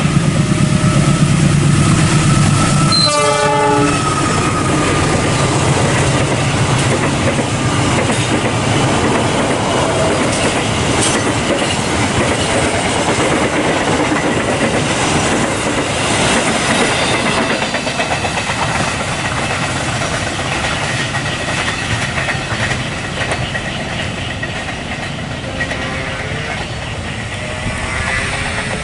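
Diesel-electric locomotive passing at speed at the head of a long passenger train: its engine hum and horn pass in the first few seconds, then the coaches' wheels clatter over the rail joints in a steady rumble that slowly fades as the train pulls away.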